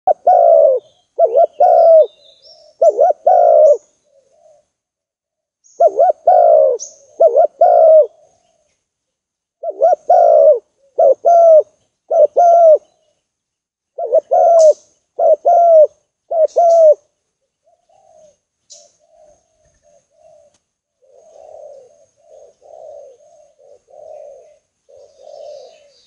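Spotted dove (tekukur) cooing loudly in repeated phrases of three to four notes, a phrase about every four seconds. From about eighteen seconds in, the cooing turns softer and quieter, with faint high chirps of small birds above it.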